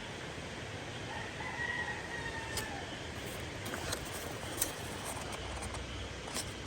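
A rooster crowing once: a long call starting about a second in that dips slightly in pitch at its end, over steady background noise. A few sharp clicks sound later on.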